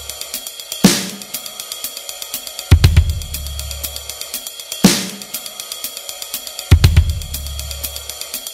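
Music track with a drum kit: quick steady hi-hat ticks, and a heavy hit about every two seconds, alternating between a deep bass drum with a held low bass note and a cymbal crash.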